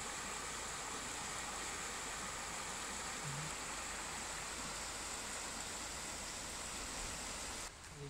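Small river's water rushing steadily over a shallow, stony riffle; the sound cuts off suddenly near the end.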